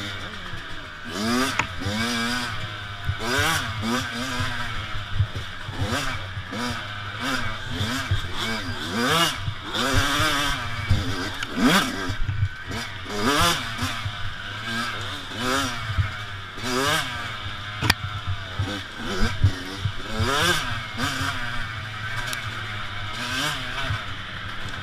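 Youth dirt bike's engine, heard from on the bike, revving up and falling back over and over as it is ridden along a bumpy woods trail, each rise and drop lasting about a second. Clattering knocks come from the bike jolting over the rough ground.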